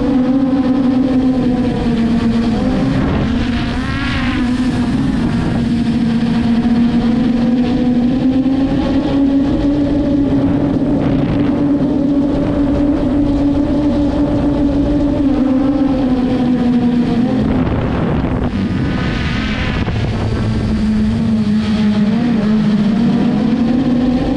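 Traxxas Aton quadcopter's four motors and propellers humming steadily, heard up close from the drone-mounted camera. The pitch dips and rises a few times as the throttle changes, with brief swells of wind rush.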